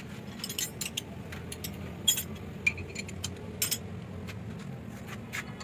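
Scattered, irregular metallic clinks and clicks of hand tools against the engine's belt tensioner and brackets, over a steady low hum.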